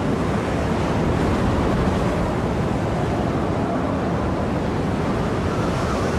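Storm wind and rough sea: a steady rushing noise of wind and waves.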